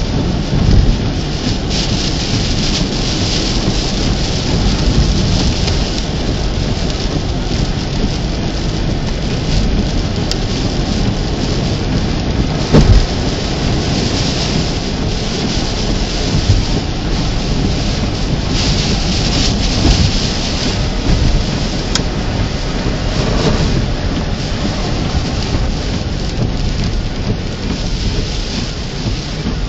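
Heavy rain pouring down steadily in a severe thunderstorm, with a deep rumble underneath and a few sharp knocks, the loudest about 13 seconds in.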